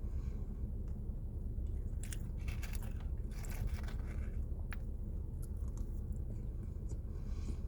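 Chewing a pumpkin spice cinnamon roll: close-up mouth sounds with a scattering of short, sharp smacks and clicks, over a steady low background hum.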